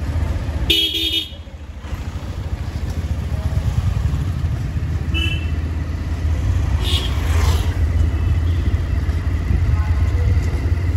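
Motorcycle riding along a town street: a steady low engine and wind rumble, with a vehicle horn tooting briefly about a second in and shorter horn beeps around five and seven seconds.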